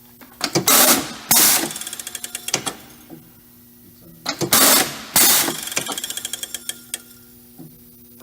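National Rivet 2620BA pneumatic riveting machine cycling twice, about a second in and again near the middle: each cycle is a pair of loud hissing air blasts from the cylinder stroke, then a fast rattling of clicks from the rotary hopper feeder that fades away. A steady low hum runs underneath.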